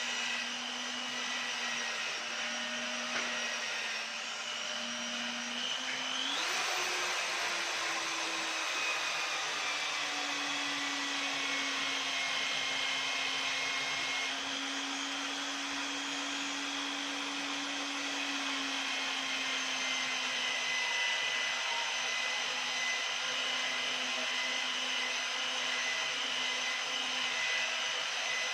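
A small electric motor running steadily with a whine. About six seconds in it speeds up to a higher pitch and holds there.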